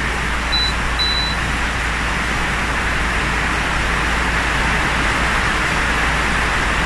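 Two short high beeps from the electric ceramic cooker's touch controls about half a second and a second in, the second one longer, over a steady loud rushing of storm wind.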